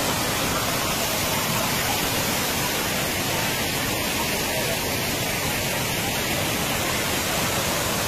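Thirparappu Falls' cascades of water rushing steadily.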